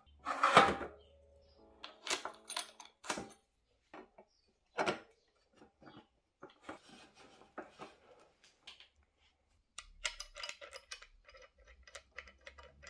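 Metal clinks and knocks as a mountain bike's fork steerer is slid through the head tube and headset spacers, stem and top cap are fitted, with a loud knock about half a second in and a quick run of small ticks near the end. Soft background music plays underneath.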